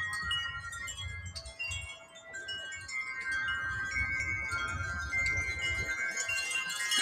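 Wind chimes ringing in gusty wind: many overlapping ringing tones struck again and again, over a low rumble of wind on the microphone.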